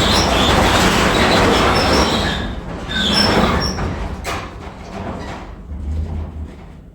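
Heavy metal door or gate dragged along, scraping with high squeals, in two long pushes, the second about three seconds in, then dying away.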